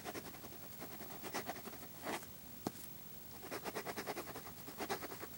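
A pen writing on paper, in several bursts of quick scratchy strokes, with one sharp tap about two and a half seconds in: a signature being added to the finished colouring.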